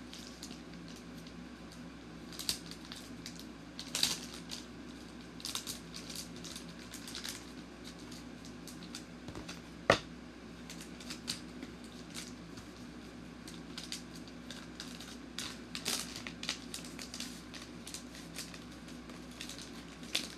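Small clear plastic bags crinkling and rustling, with scattered light clicks and taps as small parts are packed back into them, and one sharper click about ten seconds in.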